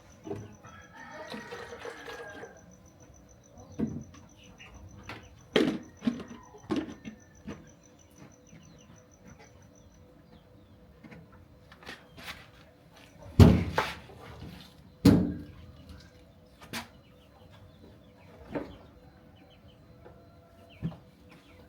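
Chickens and turkeys in a pen: a brief soft call about a second in, and scattered sharp taps and knocks through the rest, the two loudest near the middle.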